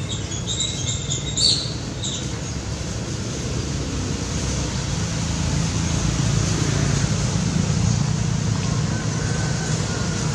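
Steady low rumble of road traffic, growing a little louder partway through. A few short high-pitched chirps sound in the first two seconds.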